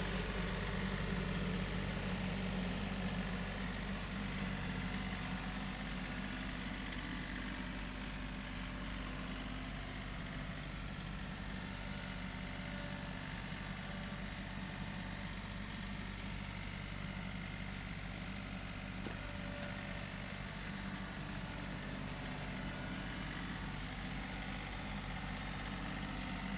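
Tractor engine running steadily at a constant, low speed, with no revving.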